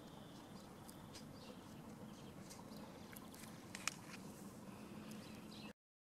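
Faint outdoor ambience with a steady low hum and scattered short bird chirps, one sharper chirp about four seconds in. It cuts off abruptly shortly before the end.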